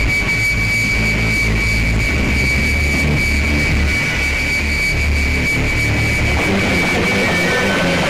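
Experimental power-noise music: a dense, harsh wash of noise over a low droning bass that shifts in steps, with a steady high-pitched whine held on top.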